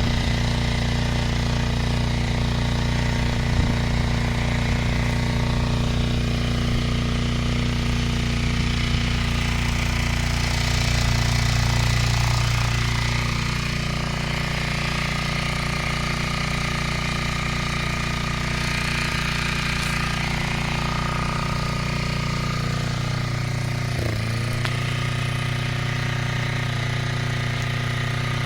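Single-cylinder Briggs & Stratton 3.5 hp petrol engine on a vintage Hayter Hayterette mower running steadily. It is a little louder around twelve seconds in and settles slightly lower after.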